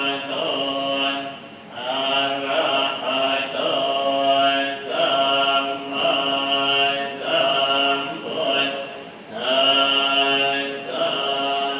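Group of children chanting a prayer together in unison, in long held phrases broken by short pauses.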